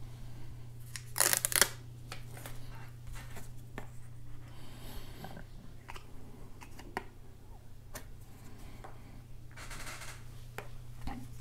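Quiet handling of dust-removal stickers and a plastic squeegee card on a tempered glass screen protector. There is a short papery crackle a little over a second in, and faint rubbing of the card across the glass later on, over a steady low hum.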